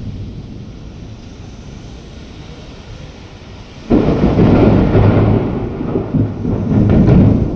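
Thunder: the tail of a rumble fades out, then a sudden loud clap about four seconds in rolls on as heavy rumbling that swells again near the end.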